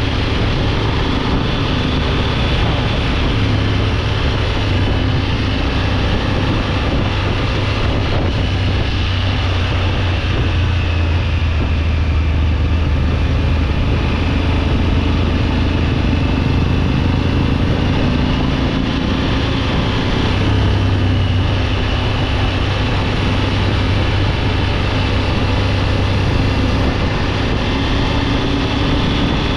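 Triumph Tiger 900 GT Pro's three-cylinder engine running steadily while riding, its pitch shifting slightly up and down with the throttle.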